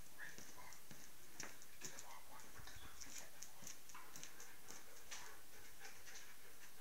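A Belgian Malinois's claws clicking and tapping on a bare basement floor as the dog moves and prances around its handler, with faint irregular ticks a few times a second.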